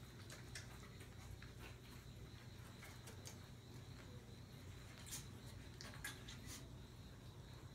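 Near-quiet room with a low steady hum and scattered faint ticks and scratches from Maltese puppies moving about and nudging a small plastic ball.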